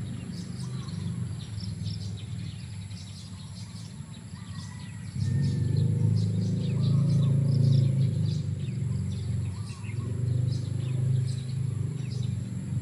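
Small birds chirping repeatedly over a low, steady rumble that gets louder about five seconds in.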